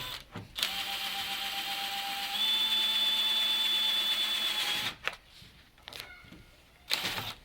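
Power drill running steadily for about four seconds while boring into the porch column, its whine getting louder and a little higher about two seconds in. Two brief sharp sounds follow near the end.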